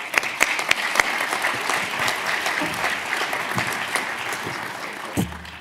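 Audience applauding, dying away near the end, with a single low thump about five seconds in.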